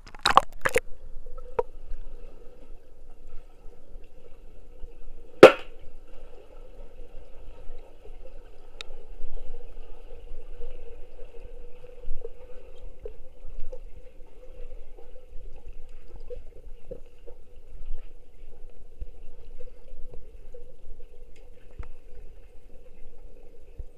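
Muffled underwater sound in a swimming pool: a steady hum with a few sharp knocks in the first second and one louder, sharper knock about five and a half seconds in.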